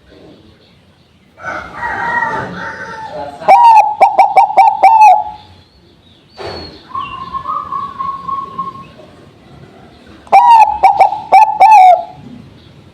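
Bangkok-strain zebra dove (perkutut) singing: two loud phrases of quick, evenly repeated cooing notes, each about a second and a half long, about six seconds apart. Before each phrase there is a quieter, longer bird call.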